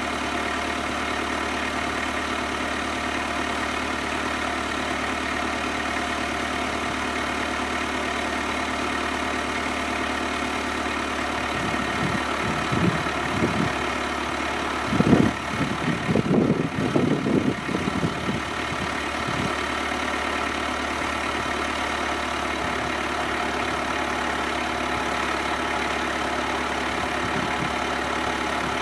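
Kubota B7800 compact tractor's diesel engine running steadily under load, turning a PTO-driven three-point post hole auger boring into the ground. About halfway through comes a few seconds of irregular heavy clunking.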